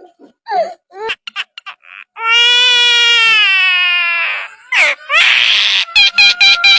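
A bird calling: a few short squeaks, then one long call of about two seconds that sinks slightly in pitch, then a quick run of short, sharp notes near the end.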